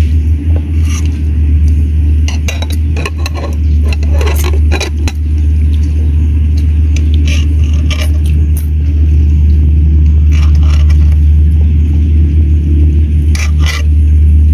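A steady loud low rumble underneath, with scattered short crunchy clicks of fried frogs being chewed and pulled apart by hand. The clicks come in a cluster over a few seconds early on and again near the end.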